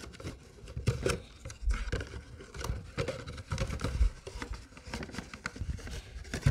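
Cardboard box being opened by hand: flaps rustling and scraping, with irregular small knocks and taps as a plastic paw-washer cup is worked out of it.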